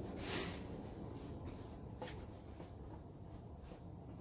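Faint rustling of cloth clothing being picked up and folded, with a couple of brief swishes, one just after the start and one about two seconds in.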